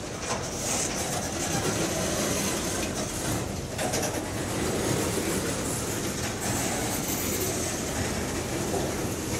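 Freight train cars rolling past: a steady rumble and clatter of steel wheels on the rails.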